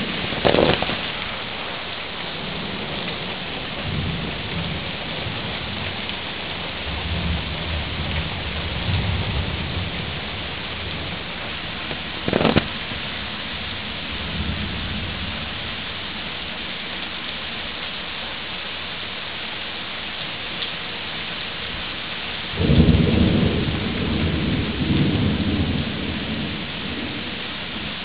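Steady rain falling on pavement, trees and a car, with thunder rumbling low at times; the loudest rumble starts about two-thirds of the way through and rolls on for several seconds. Two short sharp knocks stand out, one right at the start and one about halfway.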